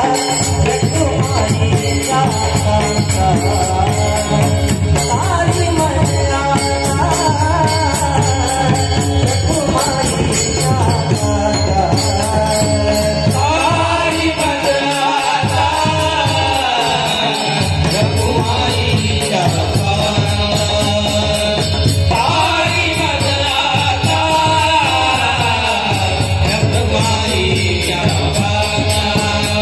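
Marathi devotional abhang singing: a male voice sings long, gliding melodic lines over a steady drum beat and jingling small cymbals.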